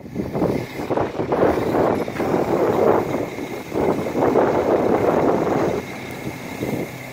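Wind buffeting the microphone in uneven gusts, over a steady low hum.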